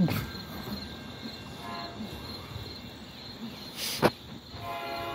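Insects trilling steadily in the trees, with two sharp thumps, one at the start and one about four seconds in, and a short buzzy call near the end.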